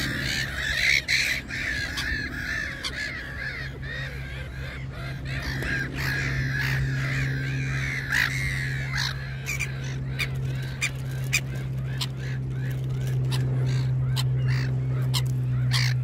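Birds calling over and over in short, wavy notes and sharp calls, over a steady low hum that grows louder about six seconds in.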